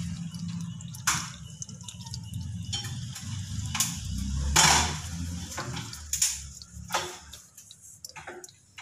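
Used engine oil dripping into a drain pan, with a few sharp clicks and knocks from handling the removed oil filter. A low steady hum underneath fades out near the end.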